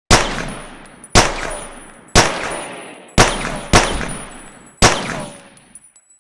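Colt pocket pistol firing six shots, each sharp crack followed by an echoing decay. The shots come about a second apart, with the fourth and fifth closer together.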